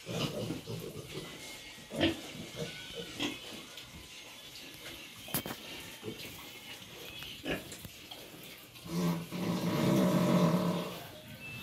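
Domestic pigs grunting on and off, with one long, louder pig call about nine seconds in that lasts about two seconds.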